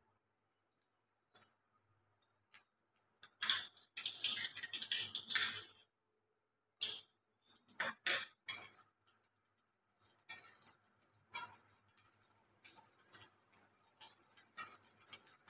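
Metal spatula scraping and knocking against a wok while stirring onions and chicken as they fry, in irregular strokes with short pauses, most busily about four to six seconds in.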